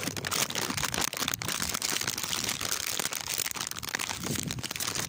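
Dense crinkling and rustling close to the microphone, a continuous run of small crackles and clicks.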